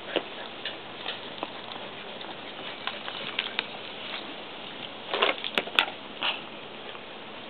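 Border collie's claws clicking and scraping on the sheet-metal top of an air-conditioner condenser unit as it shifts its feet. Light scattered taps run through, with a louder cluster of scuffs about five to six seconds in.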